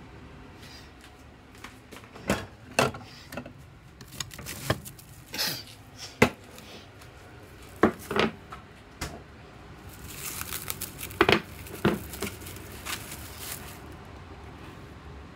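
Kitchen handling: a bowl and containers are knocked and set down on a countertop in a string of sharp clatters. Partway through there is a few seconds of crinkling.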